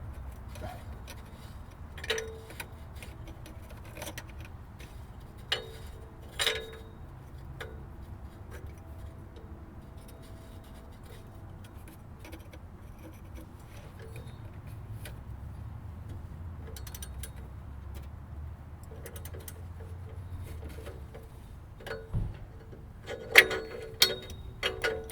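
Oxygen sensor being threaded into the exhaust and tightened with a wrench and ratchet: scattered metallic ticks and clicks over a low steady hum, with a quick run of louder metal clinks near the end.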